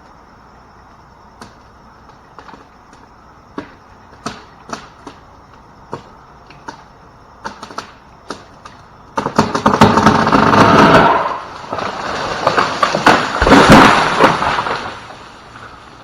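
Wood cracking as a big limb of a lightning-damaged ash gives way: a string of sharp separate cracks, then two long loud stretches of breaking and crashing from about nine seconds in.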